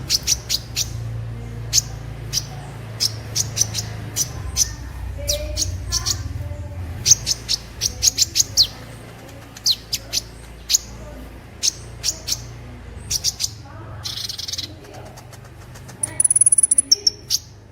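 Sunbird (Indonesian 'kolibri') song: rapid, sharp, high chirps in quick clusters. Late on comes a short buzzy note, then a fast high trill near the end, over a steady low hum.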